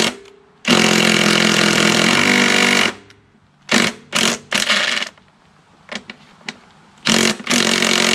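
Cordless power driver running on the magneto mounting bolts of a Kohler mower engine, in two long runs with several short bursts and a couple of clicks between them; the bolt is stuck.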